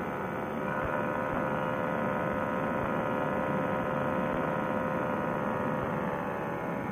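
Paramotor trike engine and propeller running at a steady cruise drone in flight, heard through a helmet Bluetooth headset microphone that cuts off the upper range and makes it sound muffled.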